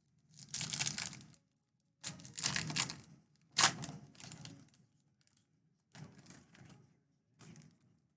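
A foil trading-card pack wrapper being torn open and crinkled in the hands, in five short bursts, with a sharp crack about three and a half seconds in.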